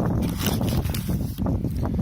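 Wind buffeting the microphone, a steady low rumble, with light rustling and handling noise over it. No firework goes off.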